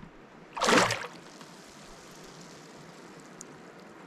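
A short splash about a second in as a released fish kicks at the surface and dives, then faint water lapping at the boat's hull.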